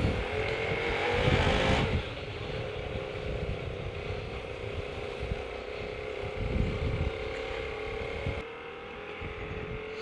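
Hyosung GT125 motorcycle's 125cc V-twin engine running as the bike rides along at low speed, with road rumble. The engine note eases off about two seconds in and drops again near the end.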